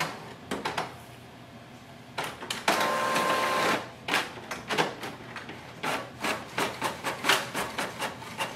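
Canon MAXIFY GX4020 inkjet printer printing a page. About three seconds in there is a brief steady whir, then regular mechanical clicking about three times a second as the job runs.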